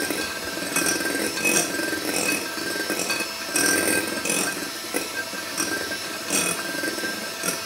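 Electric hand mixer running, its beaters whisking a runny egg, sugar and oil cake batter in a glass bowl, with a steady motor whine and a few brief louder clatters.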